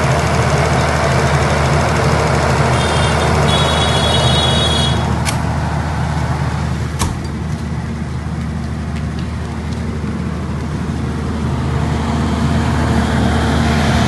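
82.5 kVA diesel generator set running steadily with a constant engine drone, with two sharp clicks about five and seven seconds in.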